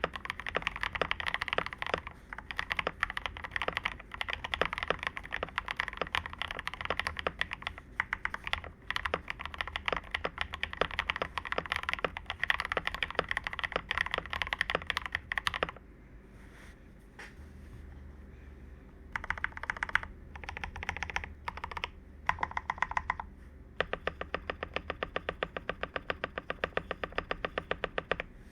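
Mechanical keyboard with lubed Akko CS Crystal Blue switches and XDA-profile keycaps being typed on: fast continuous typing, which drops to a few scattered keystrokes about halfway through, then picks up again in short bursts and a fast run near the end.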